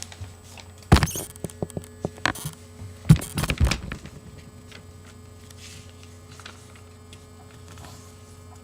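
A sheet of paper being folded in half lengthwise and pressed flat on a hard surface: a cluster of sharp taps and rustles in the first four seconds. After that only a steady low electrical hum.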